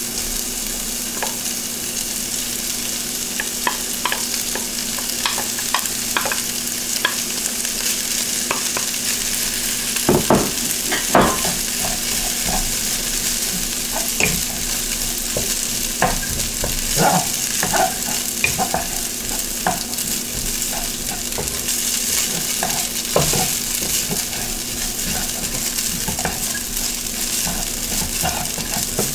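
Leftover rice and mixed vegetables sizzling in oil in a wok while a wooden spatula stirs and scrapes them around, with scattered clicks of the spatula against the pan. A couple of louder knocks come about ten seconds in.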